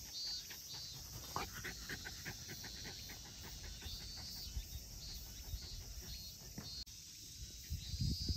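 Jack Russell Terrier panting in quick breaths, with a high insect call repeating in the background.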